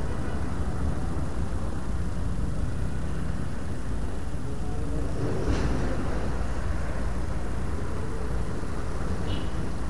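Steady low rumble of wind buffeting the microphone, with a brief faint rustle about five and a half seconds in and a short high chirp near the end.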